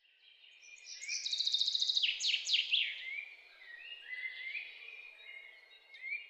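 Songbirds singing: quick trills and falling chirps, loudest about a second or two in, then softer, scattered calls, over a faint steady background rush.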